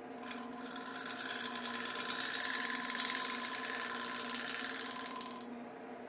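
Wood lathe running with a steady hum while a hand-held turning tool scrapes the spinning wood, a rough cutting noise that builds just after the start and stops about five seconds in as the tool is lifted off.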